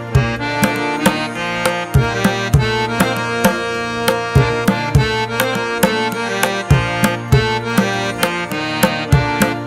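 Instrumental background music: a steady drum beat, about two strikes a second, over held melodic tones.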